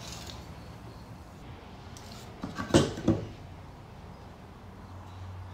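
A few sharp wooden knocks a little past halfway through, as pieces of pine board are handled and set down on a wooden workbench, over a faint steady hum.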